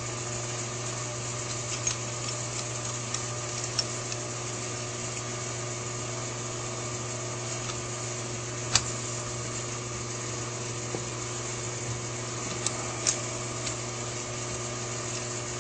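Steady background hum with a few short, light clicks and taps of small metal carburetor parts being handled as a retaining clip is fitted to the linkage; the sharpest click comes about nine seconds in.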